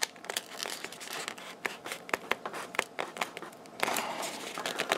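Foam airframe parts being pressed and worked together by hand: a run of irregular sharp creaks and clicks from the foam, with a stretch of rubbing about four seconds in.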